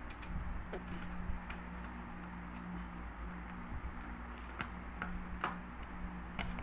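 Plastic router casing being handled and fitted back together: scattered light clicks and taps of the plastic shell halves, over a steady low hum.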